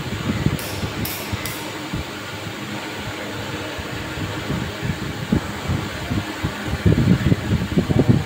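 Steady whooshing air noise with irregular low rumbles that grow louder near the end, and three faint high ticks about a second in.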